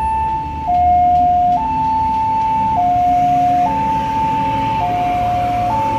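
Recorded two-tone siren of a railway level-crossing barrier, switching steadily between a high and a low tone about once a second, warning road traffic that the crossing is closing.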